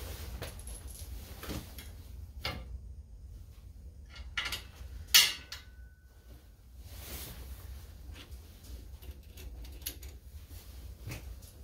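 Scattered knocks and clanks of hand tools and steel parts while a perforated mesh grill is fitted and bolted onto a tractor's front brush guard; the loudest is a sharp metallic clank about five seconds in that rings briefly. A low steady hum runs underneath.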